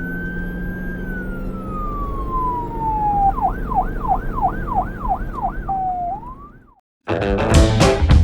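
Police siren sounding a slow falling wail, then switching to a fast yelp of about three up-and-down sweeps a second, ending in a short rise that cuts off abruptly. Music with drums comes in near the end.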